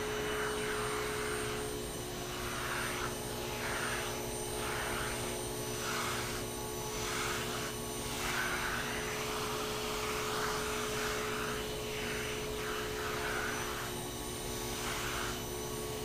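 Vacuum cleaner running steadily, its suction drawn through a pet-grooming nozzle on the hose. The hiss of the air swells and fades every second or so as the nozzle is pressed into the cat's fur and drawn back out.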